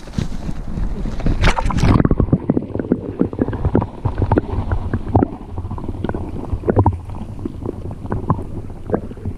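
Water splashing as the camera is plunged into the water, then muffled underwater sound from the submerged camera: a low rumbling and gurgling with scattered knocks, the highs cut off from about two seconds in.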